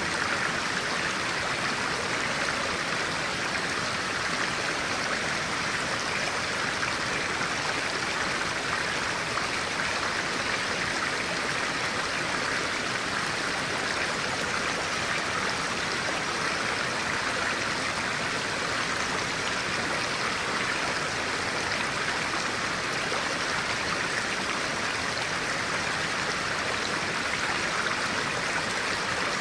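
Stream of clear water running steadily, an even rushing burble with no change in level.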